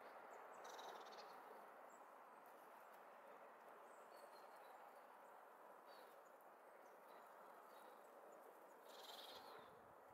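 Near silence: faint steady outdoor background with a few short, high-pitched calls from small birds scattered through it, a slightly louder one about nine seconds in.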